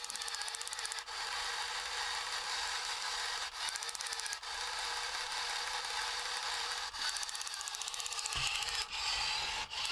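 Vintage Radio Shack RC tank's small electric drive motors and gearbox running, turning the rubber tracks as the remote is tested. The whirring cuts out and restarts several times as the buttons are let go and pressed again.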